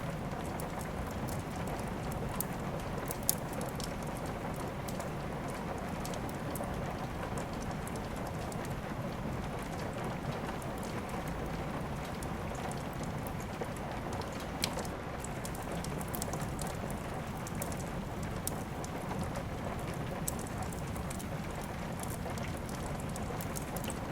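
Steady rain with a wood fire crackling; a few sharp pops stand out, about 3 s, 14 s and 20 s in.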